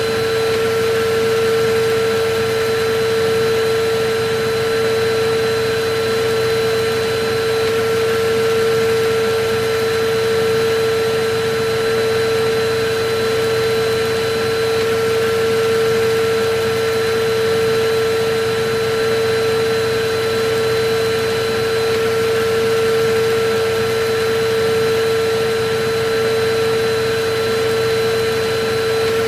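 Electric vacuum cleaner running steadily: a constant motor hum with a high tone over an even rush of air, swelling slightly in loudness every few seconds.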